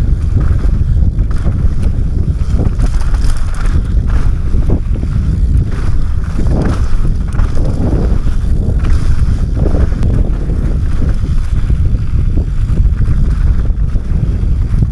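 Mountain bike descending a rocky trail: tyres crunching over stones and the bike rattling, with many short knocks, under a steady rumble of wind buffeting the helmet camera's microphone.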